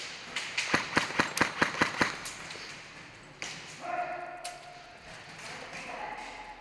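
A quick string of about nine sharp airsoft gun shots, several a second, lasting about a second and a half. Later a drawn-out voice calls out in the background.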